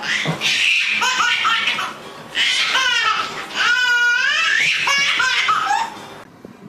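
An infant laughing, high-pitched, in about three loud bursts with short breaks between them, stopping shortly before the end.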